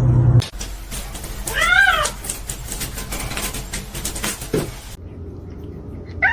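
A cat meowing once, a short call that rises and falls in pitch, about two seconds in.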